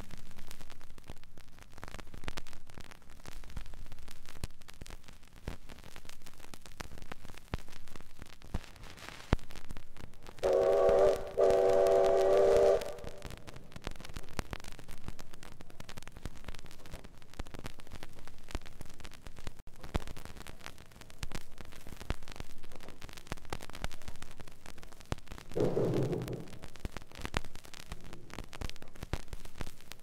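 Steam locomotive whistle: a chime blast of about two seconds, broken briefly near its start, comes about eleven seconds in. A shorter, lower blast of about a second follows near the end. Both sound over a steady hiss with scattered clicks.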